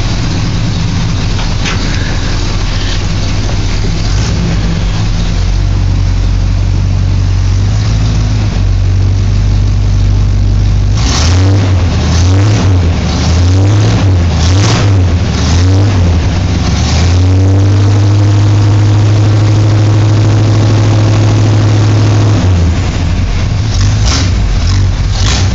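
Chevrolet C10 pickup engine running steadily, then revved in a string of short blips about halfway through and held at higher revs for about five seconds before dropping back.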